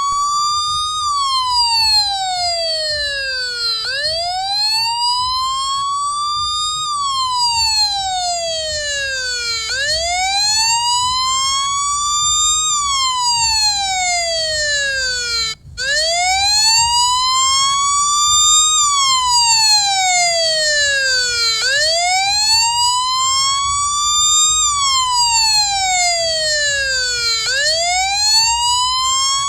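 Electronic emergency-vehicle siren sounding a slow wail, each cycle rising for about three seconds and falling for about three, over a low rumble. It cuts out for a split second about halfway through.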